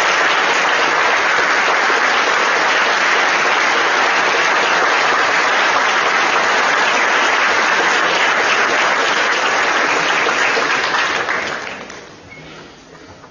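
Audience applauding steadily in a large hall, dying away over about a second near the end.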